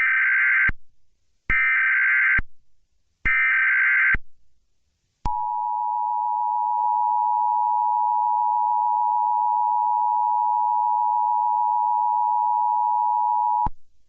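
Emergency Alert System broadcast tones: three short, identical bursts of the SAME header's buzzing data screech, then the two-tone attention signal, a steady dual-pitch tone held for about eight seconds that cuts off sharply near the end. It marks the start of an emergency alert.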